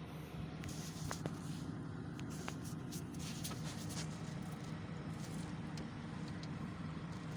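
Hyundai H100's diesel engine idling steadily, with a few faint clicks over the hum.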